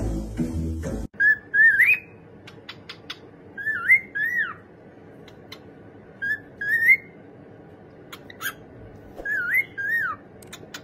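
Music that stops abruptly about a second in, then a pet bird whistling the same short phrase, a brief note followed by a rising and falling swoop, four times over, with light clicks between.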